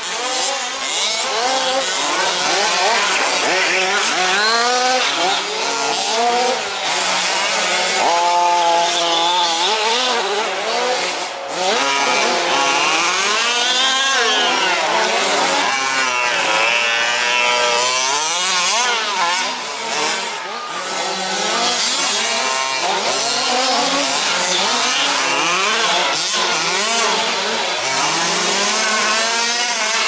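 Several 1/5-scale remote-control 4WD trucks racing, their small petrol two-stroke engines overlapping. Each keeps revving up and dropping back as the trucks accelerate and brake around the track.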